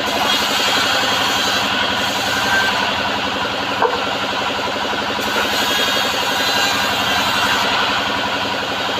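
Home-built bandsaw sawmill running, a steady, loud, dense mechanical drone with a short knock about four seconds in.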